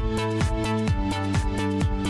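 Electronic background music with a steady beat of about two kick-drum hits a second.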